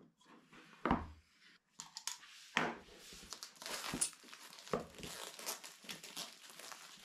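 Clear plastic shrink-wrap on a small cardboard box: a short slitting sound from a utility knife about a second in, then the film crinkling and crackling as it is peeled off and crumpled in the hand.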